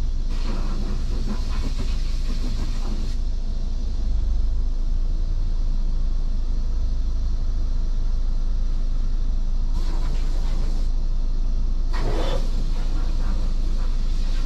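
2004 Honda Accord EX idling, heard from inside the cabin as a steady low rumble, with a few brief swells of louder noise over it.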